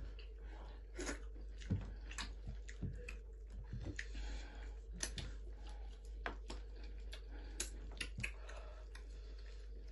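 Hand-eating sounds at close range: irregular wet clicks and smacks of mouths chewing, with fingers squishing starch fufu and pulling apart tilapia in tomato soup. A few sharper smacks stand out among them.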